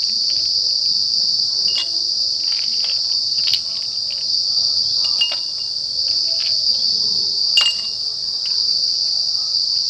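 Ice cubes being spooned into glass tumblers with a steel spoon, giving several sharp clinks, a few with a brief glassy ring. Under them runs a steady high-pitched insect chorus, the loudest sound throughout.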